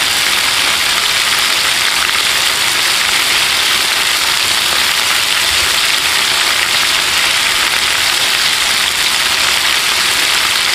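Peeled shrimp frying in hot cooking oil: a steady sizzle.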